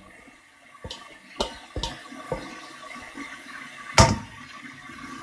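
Several sharp knocks and clatters of kitchenware being handled, the loudest about four seconds in, over a steady rushing noise.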